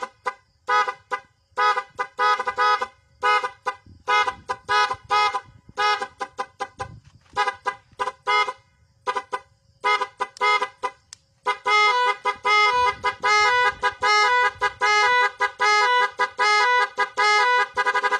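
A vehicle horn sounding a pitched, multi-tone note in many short toots in a quick, uneven rhythm, then from about eleven and a half seconds in sounding almost without a break, its pitch stepping rapidly up and down in a warbling pattern.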